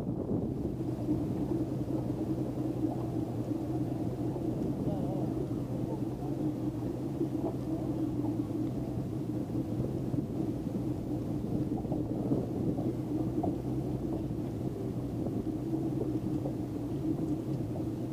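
Motorboat engine running steadily at slow speed, a constant low drone.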